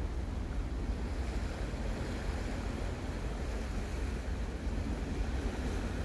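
Steady wind noise on the microphone over the wash of the sea against shoreline rocks.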